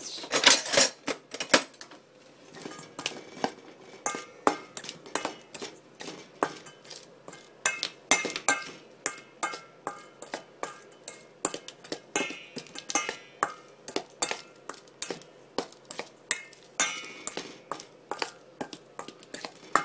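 A metal spoon stirring dry flour mix in a stainless steel bowl, clinking and scraping against the bowl about once or twice a second. Some strikes ring briefly, and the hardest come in the first couple of seconds.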